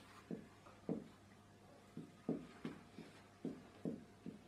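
Marker pen writing on a whiteboard: a faint, irregular string of short, soft taps of the tip on the board, about two a second.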